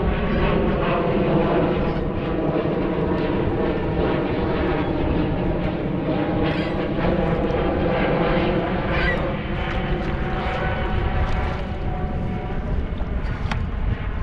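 An aircraft passing over: a steady engine drone with several pitched tones that eases off after about nine seconds, over a low wind rumble on the microphone.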